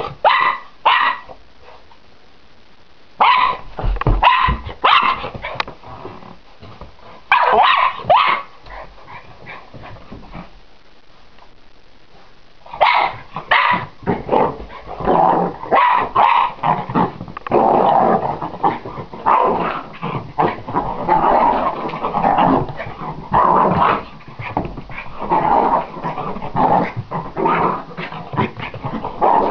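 Jack Russell terrier puppy barking in short bursts, then from about halfway on barking and growling almost without pause in excited play.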